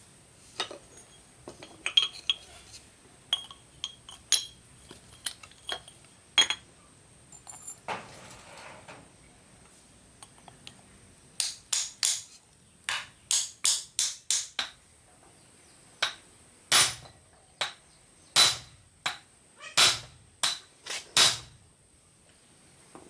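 Metal tools clinking, then a hammer striking metal: first a quick run of blows, then several heavier blows about one a second.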